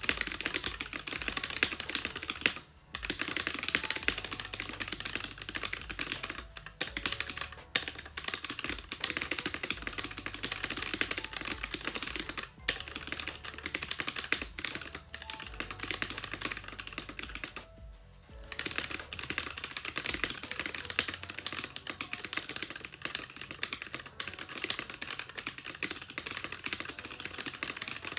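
Continuous fast typing on a Keychron K6 65% mechanical keyboard with stock Gateron Red linear switches: a dense stream of key clacks, broken by a few brief pauses.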